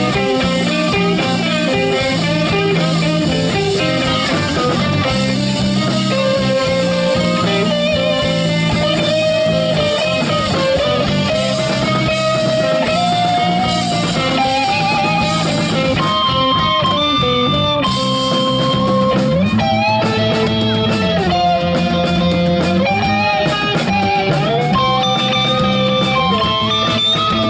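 Live rock band playing an instrumental passage on electric guitars, bass guitar and drums. In the second half a lead guitar line holds long sustained notes over the band.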